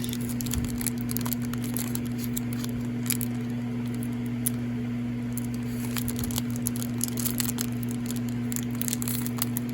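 Hands opening Pokémon card packaging: small crackles, crinkles and tearing, scattered and irregular, over a steady low hum.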